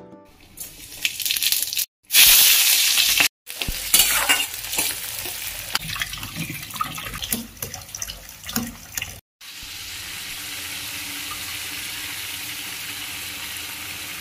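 Kitchen cooking sounds in short pieces joined by cuts: a loud hiss lasting about a second, then irregular clatter of handling and stirring, then from about nine seconds a steady sizzle of egg curry masala, with boiled eggs and potatoes, frying in oil in a wok.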